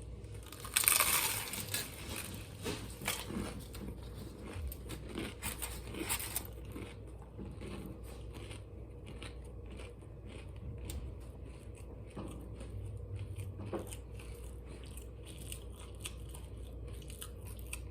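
Close-up eating of crunchy chips. A loud crackly crunch comes about a second in, followed by a run of smaller crunches over the next few seconds, which then fade into quieter, steady chewing.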